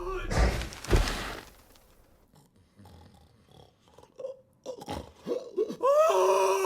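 An animated bear character's big sneeze: a loud, noisy burst in the first second with two peaks, then quieter scattered sounds. Near the end a wavering voiced 'aah' rises and is held, the wind-up of another sneeze.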